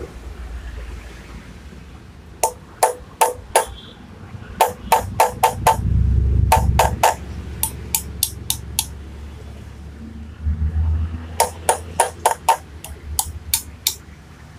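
Hammer blows on a sharpened punch held against a Honda Tiger's rear wheel hub, coming in several runs of quick sharp strikes with short pauses between, as a broken sprocket-carrier bolt is worked loose.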